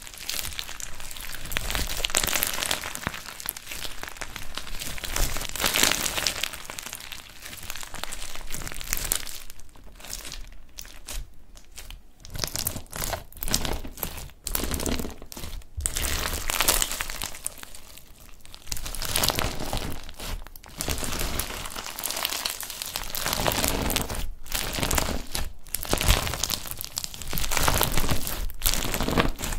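Hands stretching, squeezing and pressing clear slime packed with small round beads and star-shaped sequins, giving a dense crackling and crinkling that comes in waves with brief lulls.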